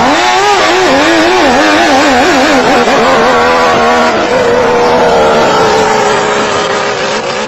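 Racing longtail boat engine running flat out: its pitch wavers rapidly up and down for the first few seconds, then holds a steady high drone that begins to fade near the end.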